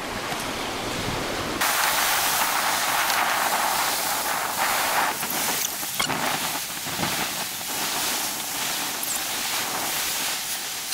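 Surf washing onto a sandy beach: a steady hiss that starts abruptly about a second and a half in, with a couple of faint knocks near the middle.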